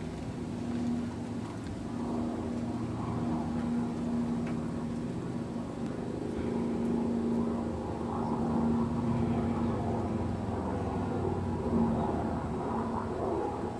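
Steady low hum of an idling vehicle engine.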